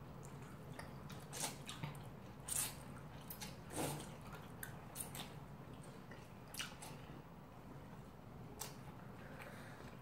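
Close-up eating sounds: cold naengmyeon noodles being sucked in and chewed, with scattered wet mouth clicks and smacks at irregular moments.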